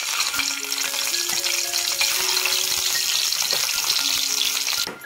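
Peeled boiled eggs frying in hot oil in a steel kadhai: a steady, loud sizzle that cuts off suddenly near the end. A background music melody plays under it.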